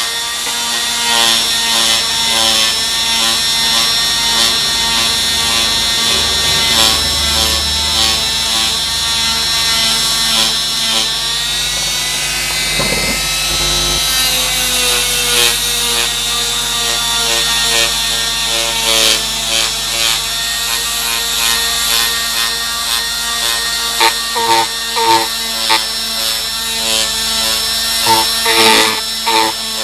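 Handheld rotary tool spinning a small sandpaper flap on a nail mandrel, sanding the inside of an aluminium motorcycle cylinder head's exhaust port for the final smoothing after porting. It makes a steady high whine whose pitch sags and recovers around the middle. Near the end it pulses about twice a second.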